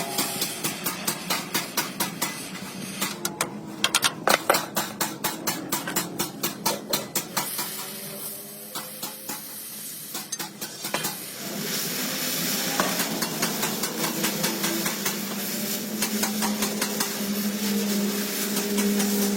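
Metalwork on a truck chassis frame: rapid metal strikes, about three to four a second, for the first several seconds, then a steady hiss with a low hum from about halfway through.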